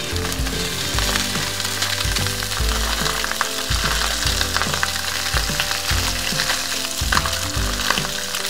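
Striped bass fillets frying skin-side down in a smoking-hot skillet with a couple of teaspoons of olive oil, a steady sizzle as the skin sears.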